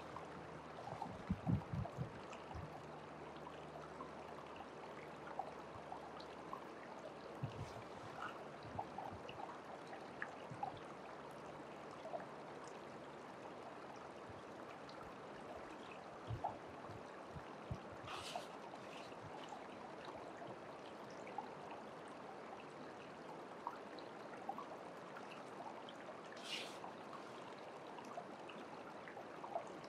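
Shallow stream water running steadily through a sluice box. A few soft knocks come in the first seconds and again mid-way as gravel concentrate is scooped from a plastic bucket, and two brief hissing splashes come later as it is tipped into the sluice.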